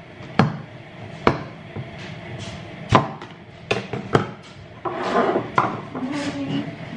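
Plastic food container with a clip-lock lid being opened and handled on a countertop: a handful of sharp clicks and knocks as the latches come free and the lid and box are moved, then a short rustling noise about five seconds in.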